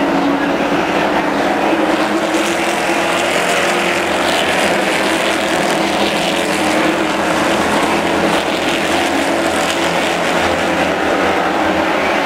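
A pack of late model stock cars racing around a short oval, their V8 engines running together in a loud, steady drone.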